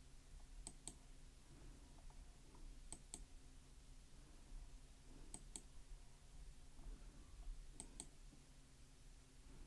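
Near silence with four faint pairs of sharp clicks, about every two and a half seconds, over a low steady hum.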